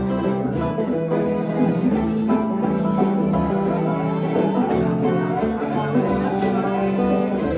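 Live acoustic group jam in a bluegrass style: plucked strings playing over a steady beat.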